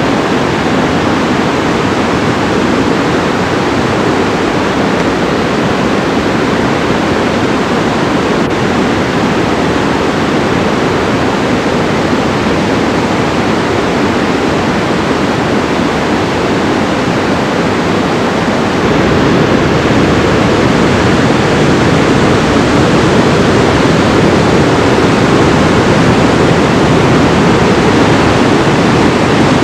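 Steady rush of whitewater pouring through a narrow rocky gorge, growing a little louder about two-thirds of the way through.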